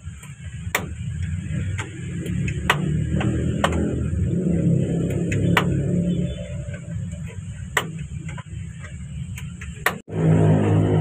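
Irregular sharp clicks and taps of a hand tool on metal fittings at the top of a radiator, over a steady low drone.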